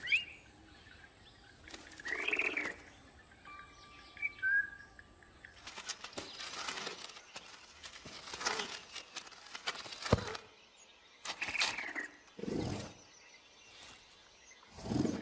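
Animated baby owl sound effects: a few short high chirps and squeaks, then repeated bursts of feathery rustling and scuffling as it pushes an egg along, with a sharp click near the middle and a couple of lower, heavier sounds near the end.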